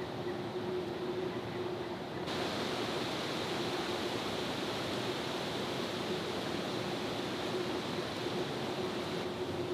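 Steady outdoor background noise: an even hiss with a faint steady hum under it. The hiss grows brighter about two seconds in.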